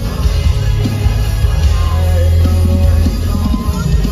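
Live rock band playing loudly through an arena PA: electric guitar, drums and heavy bass, with a male singer's voice.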